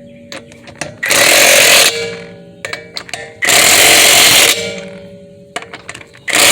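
Impact wrench hammering wheel lug nuts tight in three bursts of about a second each, the last starting near the end, with small clicks between the bursts.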